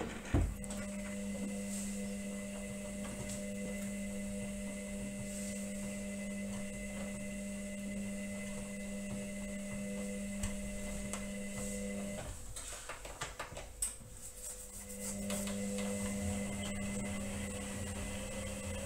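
Indesit front-loading washing machine's motor humming steadily as it turns the drum. It stops about twelve seconds in, with a few clicks and knocks, and starts again about three seconds later. This is the detergent-mixing spinwash stage of the wash.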